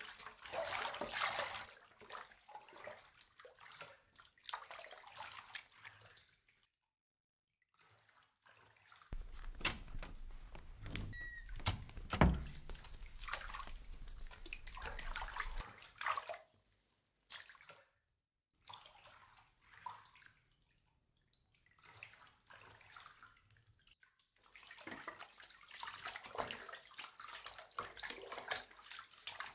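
Bathwater sloshing and dripping as a person shifts in a bathtub, in irregular stretches broken by short silences. In the middle comes a low rumble with a single sharp knock about twelve seconds in, the loudest sound.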